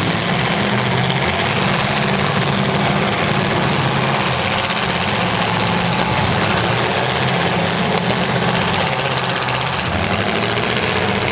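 Demolition derby cars' engines running together, a loud steady drone that holds at much the same level throughout.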